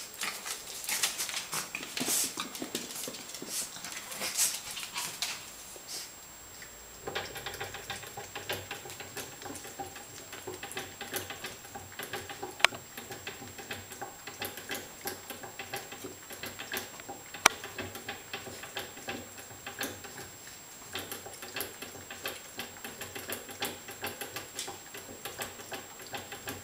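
A small long-haired puppy gnawing and tugging at things, a fast patter of small clicks from its teeth and claws. A faint steady hum joins about seven seconds in, and two sharp clicks stand out later on.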